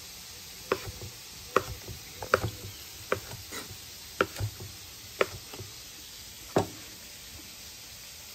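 Kitchen knife chopping cooked chuck eye steak into bite-sized cubes on a cutting board: about a dozen sharp, irregular knocks of the blade hitting the board, which stop about a second and a half before the end.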